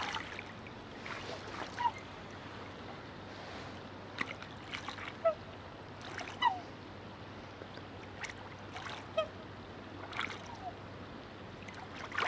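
A courting pair of black swans giving several short, high honking calls, some falling slightly in pitch, while splashing in the water.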